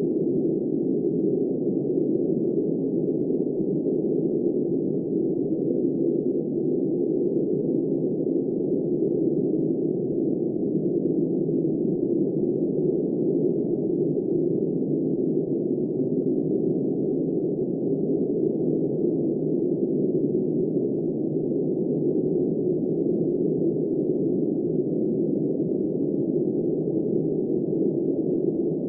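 Steady, muffled low rushing noise of wind, holding even throughout with no gusts or sudden sounds.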